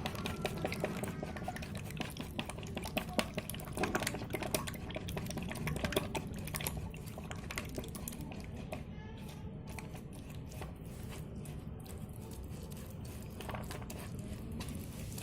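Wet fishing-bait mixture being stirred and whisked in a container, with irregular clinks and knocks and liquid sloshing.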